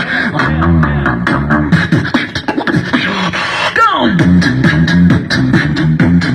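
Human beatboxing: a pulsing vocal bass line under rapid clicks and snare-like hits, with a falling pitched sweep a little before four seconds in.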